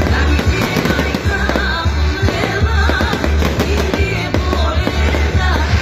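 Loud music with a heavy bass beat and singing, over fireworks shells bursting and crackling overhead.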